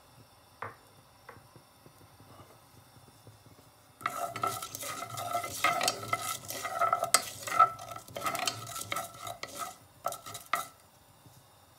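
A wooden spoon stirring and scraping around a non-stick saucepan of fenugreek and mustard seeds frying in hot sesame oil. It starts about four seconds in and stops shortly before the end. Before it there are only a couple of faint ticks.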